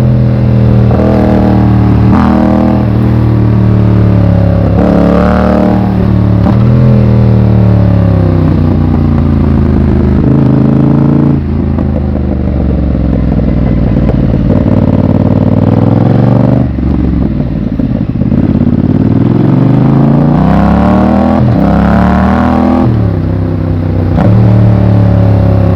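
Yamaha MT-07's parallel-twin engine pulling through the gears: the pitch climbs and drops back at each shift. About halfway through, and again a few seconds later, the rider eases off and the engine note falls before it builds up once more.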